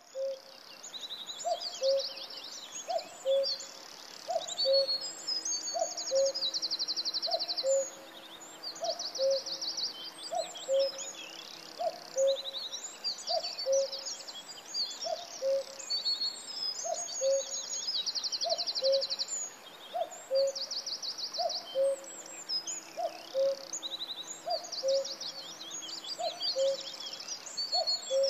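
Common cuckoo calling its two-note "cuck-oo", a higher note dropping to a lower one, repeated over and over about every one and a half seconds. Other small birds sing throughout, higher up, with rapid trills.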